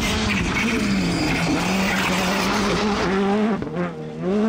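Škoda Fabia rally car's turbocharged four-cylinder engine running hard on a gravel stage, with tyres scrabbling on the loose surface. The revs dip briefly about three and a half seconds in, then climb again.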